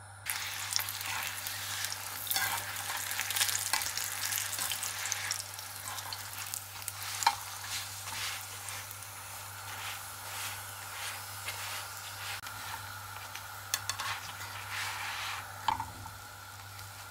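Oil sizzling under a paratha frying on a hot flat griddle (tawa), a steady hiss with scattered sharp clicks and scrapes from the spoon and tongs working it on the pan.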